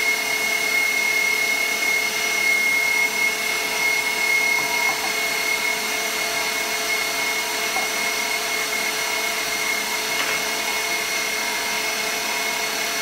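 KitchenAid stand mixer motor running steadily at its top speed setting, driving the pasta press attachment as it extrudes spaghetti: a loud, even motor whine with a high tone over a rushing hum.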